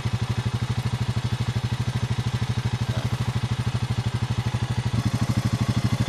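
Quad bike engine idling with an even beat of about ten pulses a second, getting a little louder about five seconds in.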